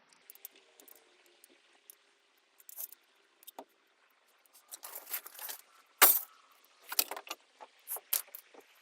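Metal hand tools and hardware clinking and rattling in a run of short irregular clicks and clatters, with one sharp knock about six seconds in.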